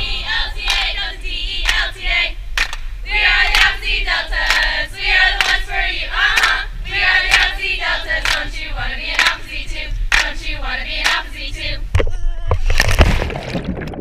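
A group of young women chanting a sorority chant in unison, clapping in a steady rhythm. Near the end the chant breaks off and a rush of water noise takes over.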